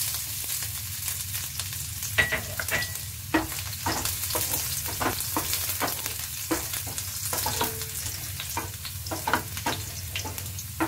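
Chopped garlic sizzling in hot oil in a nonstick pan, a steady hiss, while a wooden spatula stirs it with many irregular taps and scrapes against the pan.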